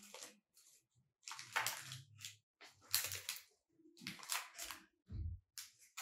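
Packaging being handled: a small cardboard watch box and its insert rustling and scraping in several short, irregular bursts as it is repacked, with a dull bump a little after five seconds in.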